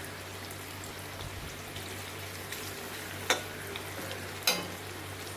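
Carrots and beans sizzling steadily as they fry in ghee in a kadai, with two sharp knocks of the stirring utensil on the pan about three and four and a half seconds in.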